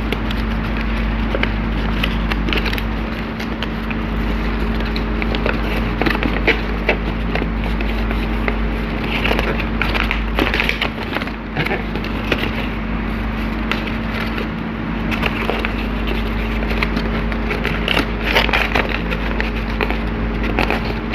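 A sheet of paper being folded and creased by hand close to a clip-on microphone: irregular crinkling and crackling over a steady low hum.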